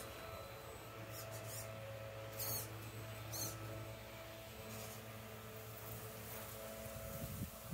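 Brushed 550 electric motor and geartrain of a 6x6 RC rock crawler whining steadily, with a few short high-pitched squeaks in the first five seconds and some soft low knocks near the end.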